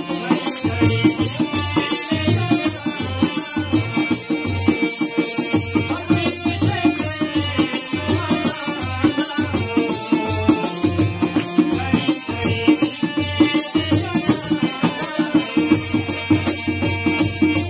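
Bhaderwahi folk dance music: a drum and a rattling percussion keep a fast, steady beat over a pitched melody.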